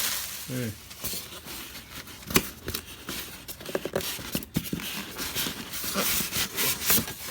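Cardboard box and styrofoam packing being handled and pulled apart while unpacking a belt sander: steady rustling and scraping with scattered sharp knocks, the loudest about two and a half seconds in.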